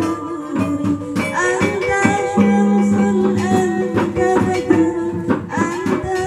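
Background music with a plucked string instrument and a light shaker-like rattle.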